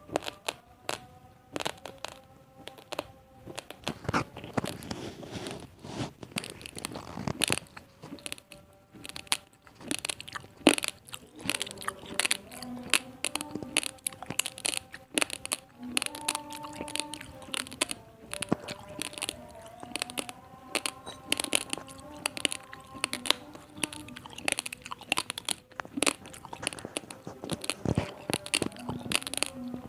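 Raw, uncooked basmati rice grains being bitten and chewed: a close, rapid string of sharp, dry crunches.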